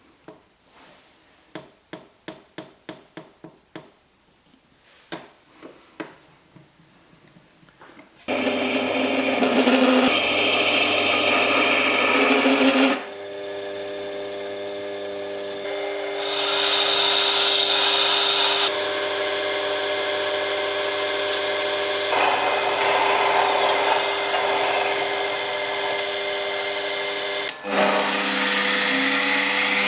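A run of sharp taps and clicks, then an electric power tool's motor starts and runs steadily, its pitch and tone shifting several times as it works. Near the end it stops briefly and spins up again with a rising whine.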